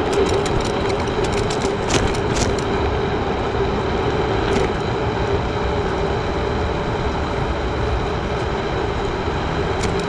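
Gyroor Urban Max C1 electric scooter on the move: a steady motor hum over road and wind noise, with a few sharp clicks or rattles in the first few seconds.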